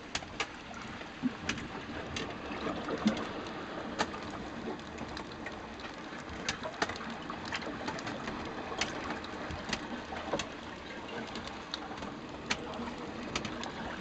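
Rain falling on a sailboat's deck and hatch, heard from inside the cabin: a steady wash with scattered sharp drop hits at irregular intervals.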